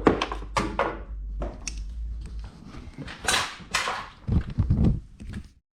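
Metal hand tools clinking and clattering in a run of irregular knocks, as a 13 mm socket or wrench is picked out and used on the cover bolts.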